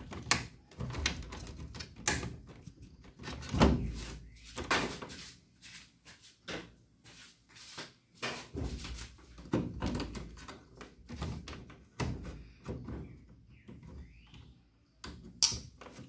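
Irregular clicks, knocks and plastic handling noises as a small rubber hose is pushed onto a washing machine's plastic water inlet solenoid valve, with the heaviest knocks in the first five seconds and another near the end.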